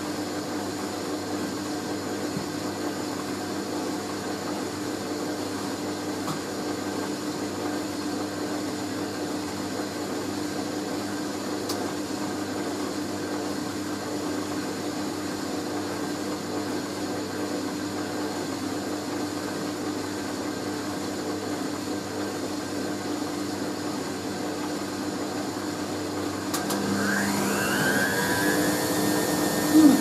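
Hoover A3060 Electronic 1100 front-loading washing machine spinning steadily on its slow spin, which should start at 500 rpm, with a steady motor hum. Near the end it gets louder and the motor whine rises in pitch as the drum picks up speed.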